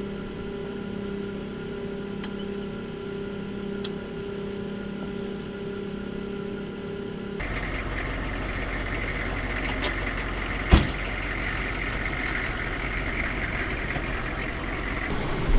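Military tactical vehicle's diesel engine idling with a steady hum. About seven seconds in the sound changes to a rougher, louder running. A single sharp bang stands out about eleven seconds in.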